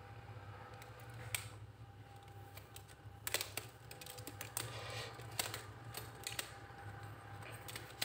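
Metal hand tools being handled and set down: scattered light clicks and taps a second or two apart, over a faint steady hum.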